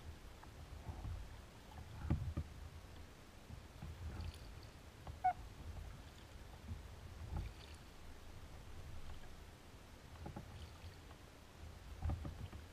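Kayak paddling on calm water: a double-bladed paddle dipping and pulling through the water in soft strokes every two to three seconds. A short high squeak about five seconds in.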